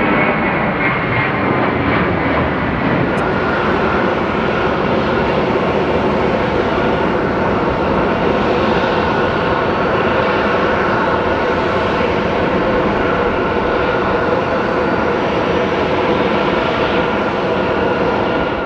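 Jet airliner engines close by, a steady loud rush of engine noise with several steady whining tones running through it.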